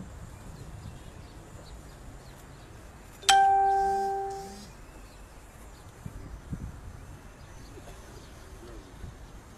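A single bright chime about three seconds in, a clear two-tone ding that fades away over a second and a half, over the low hush of a large crowd standing outdoors.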